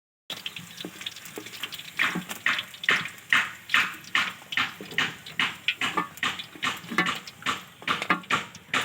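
Boneless chicken sizzling as it deep-fries in oil in a kadai, with a spatula stirring it in regular strokes about two to three a second.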